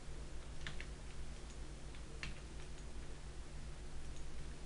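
A handful of sharp computer mouse clicks, the loudest a little past two seconds in, over a steady low hum of room and microphone noise.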